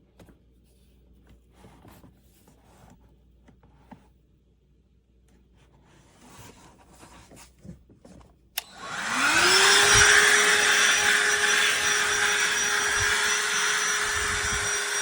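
Faint handling noises, then a click about eight and a half seconds in as the DEWALT DCV501HB 20V cordless handheld vacuum is switched on: its motor spins up with a rising whine and settles into a loud, steady run.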